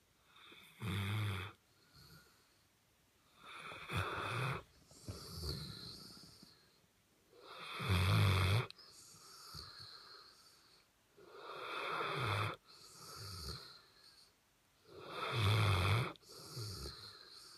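A sleeping pet snoring: five loud snoring breaths in, about every three to four seconds, each followed by a quieter breath out.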